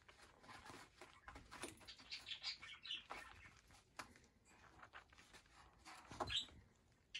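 Young cockatiels sand-bathing: wings flapping and sand scattering in short, irregular bursts with small clicks.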